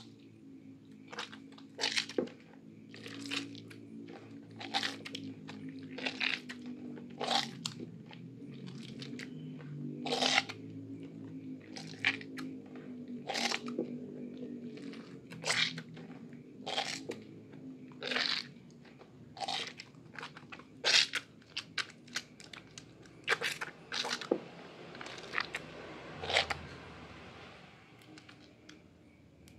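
Bare hands squeezing and kneading soaked Lervia milk soap in a basin of thick lather: wet, crunchy squelches about once a second.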